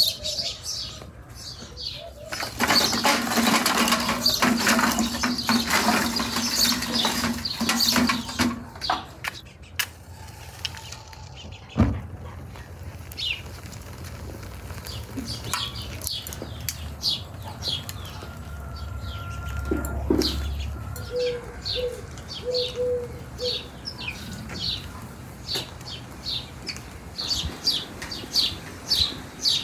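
Birds chirping outdoors in quick, repeated short high notes through the second half. Near the start a loud rushing noise with a steady hum runs for about six seconds, and there is a single sharp knock a little before the middle.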